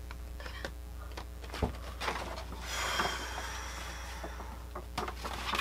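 Handling noises from unpacking a music album's contents: a few soft clicks and knocks and a rustle of paper or plastic about halfway through, over a steady low hum.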